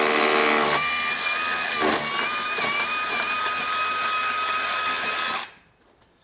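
An electric power tool runs for about five seconds with a steady high whine over a rough, gritty noise, then stops abruptly.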